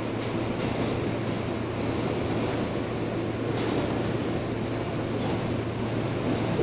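Inside an R143 subway car in motion: steady wheel-and-rail rumble with a constant low hum.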